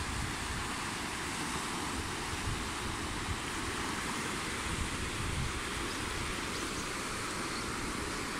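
Muddy floodwater of a swollen urban stream channel rushing past at speed: a steady, unbroken rushing noise.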